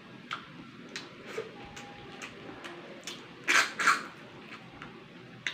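A person sucking cooked snail meat out of its shell with two loud slurps about three and a half seconds in, after soft mouth clicks and chewing.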